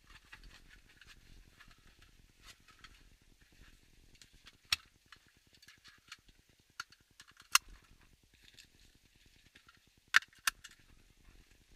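Seat-belt buckles and metal latch plates clicking and knocking as they are handled, over faint rustling of belt webbing and seat upholstery. A few sharp clicks stand out, two of them in quick succession near the end.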